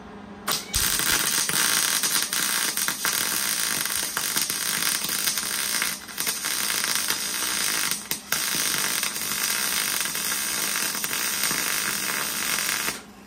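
Electric arc welding on galvanized Unistrut steel channel: the arc gives a steady, loud crackle. It strikes about half a second in, breaks briefly twice (around six and eight seconds), and stops just before the end.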